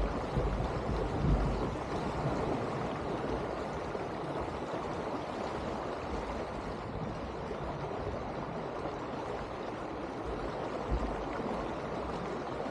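Water rushing and gurgling along the hull of an Elan 310 sailboat under sail, a steady wash with a few low rumbles near the start and again near the end.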